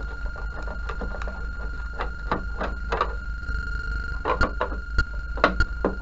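Irregular clicks and knocks of hands handling the plastic cabinet of a CRT television, coming more often in the second half, over a steady high tone.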